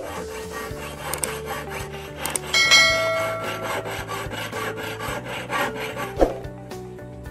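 Rasping back-and-forth strokes of a jeweller's saw and file cutting and shaping an 18k gold ring against a wooden bench pin. About two and a half seconds in, a bright metallic ring sounds briefly. There is a sharp knock at the start and another about six seconds in.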